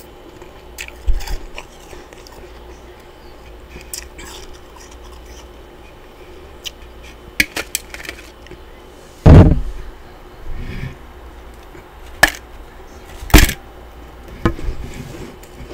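Close-miked crunching of freezer frost chunks being bitten: a few sharp, widely spaced crunches, the loudest about nine seconds in and another loud one about thirteen seconds in, with smaller clicks between.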